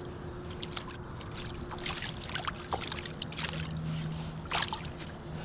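Rainbow trout splashing in a landing net held in shallow stream water: a string of short, sharp splashes over the steady rush of the stream.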